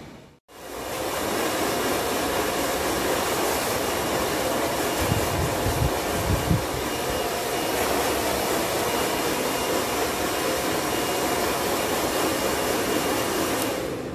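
Hair dryer blowing steadily, starting suddenly about half a second in.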